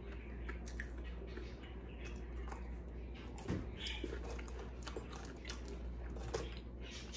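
A person chewing a mouthful of French toast stick close to the microphone, with many small scattered mouth clicks and smacks.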